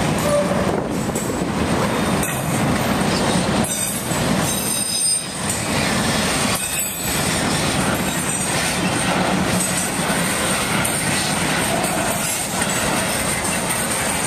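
Freight train cars rolling past, steel wheels rumbling on the rails with a high-pitched wheel squeal over the noise.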